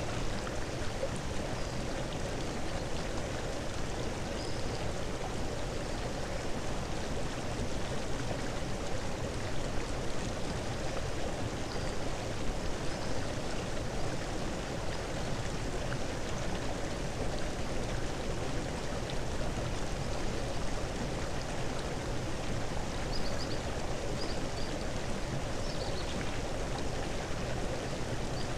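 Steady rushing noise like running water, with a few faint high chirps near the end.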